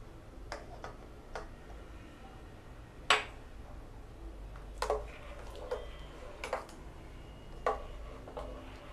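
A metal spoon stirring thick sweet milk pongal in a stainless steel pot, clinking against the pot's sides and bottom about eight times at irregular intervals, the loudest knock about three seconds in.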